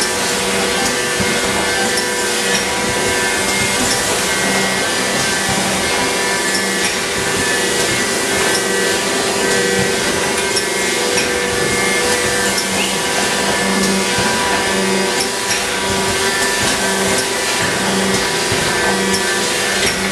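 Meurer automatic tray packer running empty on a dry cycle: a steady mechanical whir and hum from its motors and conveyor drives, with faint clicks from the moving parts.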